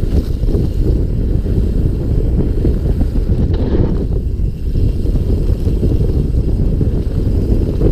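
Mountain bike rolling fast down a dirt singletrack, heard as a steady, dull rumble of tyres and frame chatter mixed with wind buffeting the action camera's microphone.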